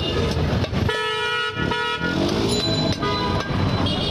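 Vehicle horns honking over steady street traffic noise, one horn held for about a second.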